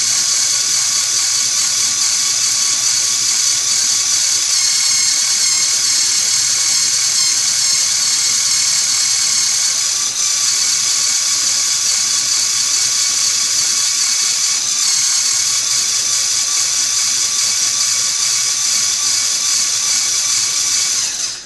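A LEGO Mindstorms NXT motor turns the plastic gear train of a three-speed transmission model with a steady high whine. About halfway through the whine dips briefly as the shift lever is moved. It cuts off sharply at the very end as the motor stops.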